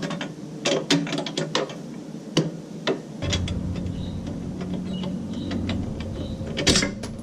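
Irregular metallic clicks and clinks of hand tools working on the bolts of a motorcycle crash bar as it is taken off. A low steady hum starts about three seconds in, and a quick run of clicks comes near the end.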